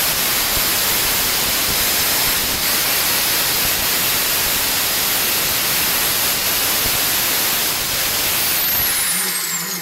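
Osaka 1100 W angle grinder running free with no disc fitted: a steady, loud hiss of motor and fan with a high whine. It is switched off about nine seconds in, and the whine falls in pitch as the motor coasts down.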